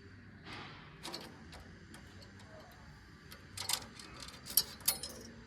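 Steel saw chain being pulled off the saw bar by hand: scattered light metallic clicks and clinks of the links, with louder clusters of rattling in the second half.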